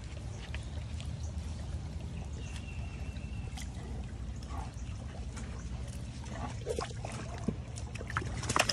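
Small rocky stream trickling steadily over stones, with a few wet laps and splashes near the end as a tiger drinks from it.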